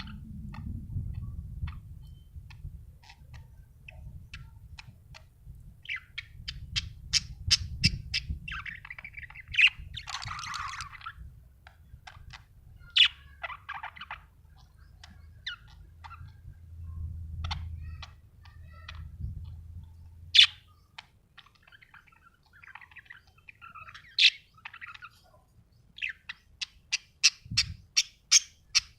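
Budgerigar chirping and warbling: quick runs of sharp clicking chirps, a scratchy warble, and single loud chirps between them.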